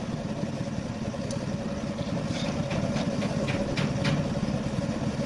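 Truck engine idling steadily, with a few light clicks or taps about two to four seconds in.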